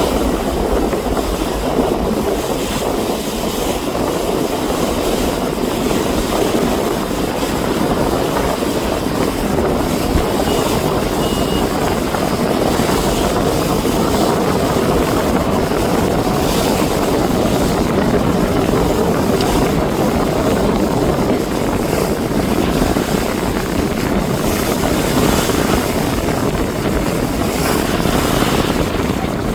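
Fishing boat under way at sea: a steady, loud rushing noise with an engine drone underneath.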